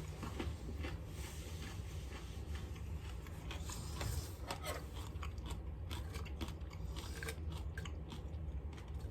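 A person chewing crisp, thin-cut bacon close to the microphone: many small crunches.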